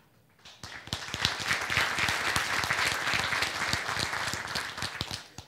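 Audience applauding, starting about half a second in and stopping fairly abruptly near the end.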